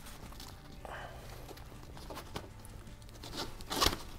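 Nylon harness strap being pulled through and snugged against the paramotor harness fabric: soft rustling and scraping, with a louder rasping pull near the end.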